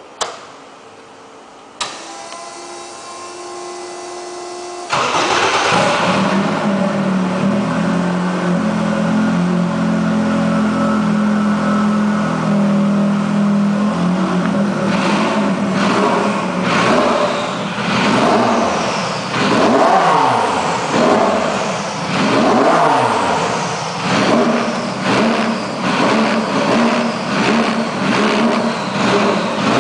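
Race car engine being started while stationary: two sharp clicks and a steady electrical whine, then the engine catches about five seconds in and idles. From about fifteen seconds on it is revved in repeated blips, its pitch rising and falling with each one.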